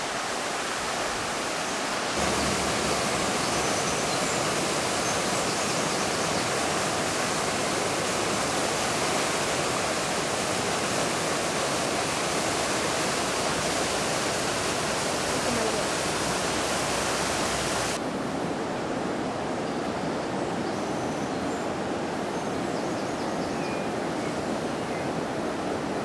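The Río Saja in flood, fast brown water rushing past in a steady, even noise. About two-thirds of the way through the sound changes abruptly to a duller rush with much less hiss.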